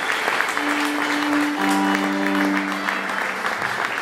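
Audience applauding while a fiddle holds long steady bowed notes, with a second, lower note sounding with it for about a second and a half in the middle.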